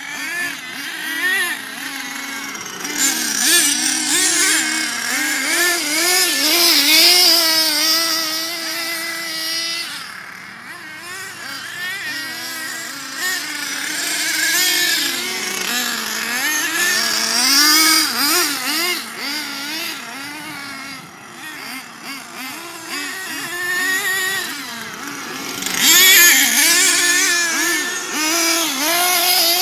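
Nitro RC monster trucks' small two-stroke glow engines revving up and down as they race, a high buzzing whose pitch keeps rising and falling with the throttle. It grows louder at times as a truck passes close.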